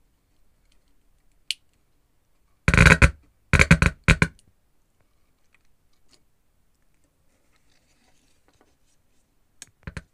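Short bursts of crackling and scraping as wires and an alligator clip are handled and connected between a small speaker and the amplifier board, clustered about three seconds in, then two short clicks near the end.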